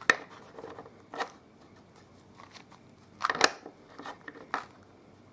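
A plastic 2x2 Rubik's cube being turned by hand, its layers clicking and snapping in several short separate turns, with the loudest cluster of clicks a little past three seconds in.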